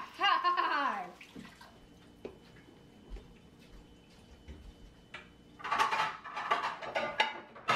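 A metal spoon stirring thick cake batter in a glass bowl, scraping and clinking against the glass. Water runs at a kitchen sink, and a busier run of scrapes and clicks comes about six seconds in.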